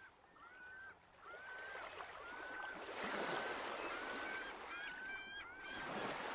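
A series of short bird calls, about one a second, each a single held note, over a growing wash of noise.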